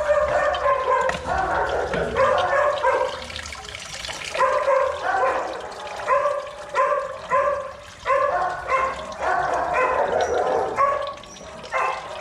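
Kennelled dogs barking over and over: a run of short, sharp barks, often two or three in quick succession, with brief pauses between the bouts.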